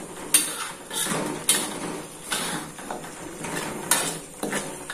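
Stirring in a cooking pot: a utensil scraping through the spice paste and knocking against the pot, with several sharp clanks.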